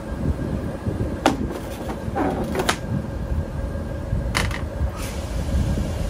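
Sheet-metal cable-tray covers being handled, knocking and scraping with a brief metallic ring about a second, two and a half seconds and four and a half seconds in, over the steady hum of air-conditioner outdoor units running.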